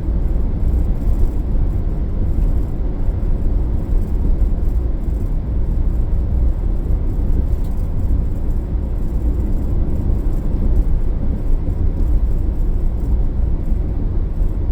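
A car driving along a road: a steady low rumble of tyres and engine that holds an even pace throughout.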